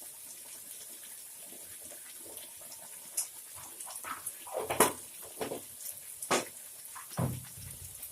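A spoon scraping and tapping against a cooking pan as masala paste is stirred, in a few short separate strokes, the loudest about five and six seconds in.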